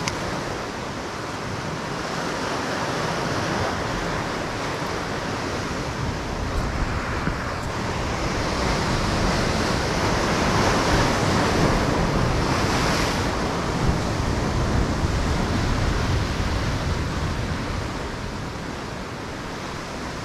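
Ocean surf washing against a rocky shore, swelling louder for several seconds in the middle, with wind on the microphone.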